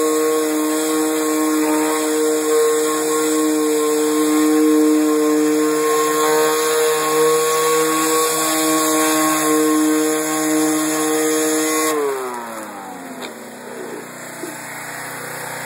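Gas-engine pressure washer running steadily while spraying through a rotating surface cleaner. About twelve seconds in, the steady pitch slides down and the sound drops, leaving the engine running more quietly.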